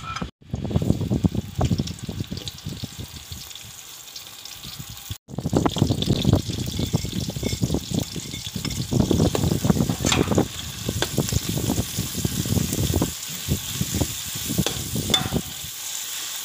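Steel spatula scraping and stirring in a metal wok as fish paste and chopped aromatics fry in hot oil, with a steady sizzle under irregular scrapes and knocks. The sound breaks off twice at cuts, once near the start and once about five seconds in.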